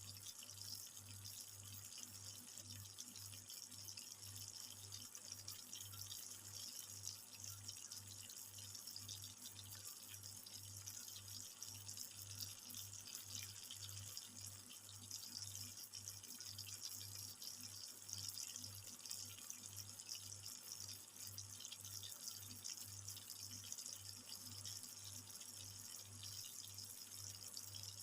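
Chicken feet adobo simmering in its pan: a faint, steady bubbling hiss, with a low hum underneath.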